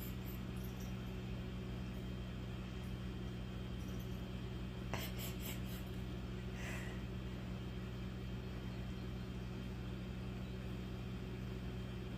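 Quiet room tone: a steady low hum, with a couple of faint clicks about five seconds in.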